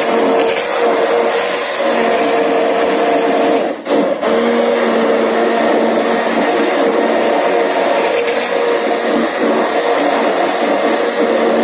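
Electric hand blender motor running steadily, its blade whipping thick curd in a stainless-steel jug, with a brief dip about four seconds in. The curd is being churned until a light layer of butter starts to form.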